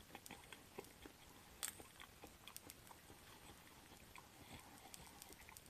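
Faint chewing of pan-fried shrimp shumai with crisp, browned skin: scattered small crunchy clicks, one a little louder about a second and a half in.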